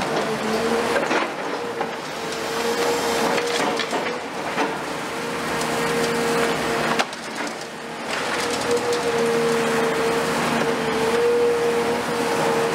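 A CAT 336F long-front demolition excavator's hydraulic crusher jaws biting into a concrete floor slab: crunching and crackling of breaking concrete, with one sharp crack about seven seconds in. The machine's hydraulics run underneath with a steady whine.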